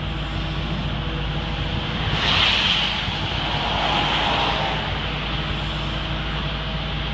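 Gradall excavator's diesel engine running steadily. About two seconds in, a louder hiss rises over it and eases off after two or three seconds.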